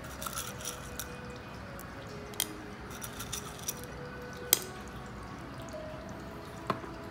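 Small pebbles clicking against a glass cup and against each other as they are picked out by hand: a scatter of light clicks, with sharper ones about four and a half seconds in and near the end, over the steady trickle of a tabletop water fountain.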